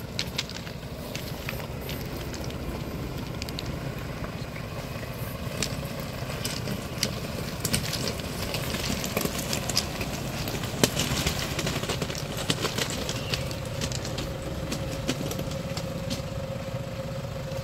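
Car driving slowly down a rough slope, its engine running low and steady, with scattered crackles and clicks from the tyres rolling over the rough surface. A faint steady hum comes in about halfway through.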